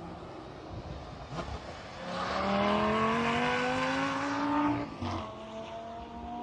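Sports car engine accelerating hard, its pitch rising steadily for about three seconds. It breaks off at a gear change near the end and climbs again, quieter.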